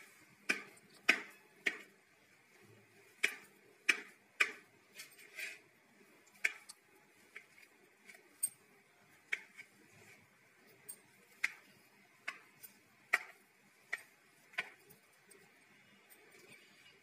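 A steel knife blade clicking against a ceramic plate as it cuts down through soft steamed dhokla. The sharp ticks are irregular, about one or two a second, and thin out near the end.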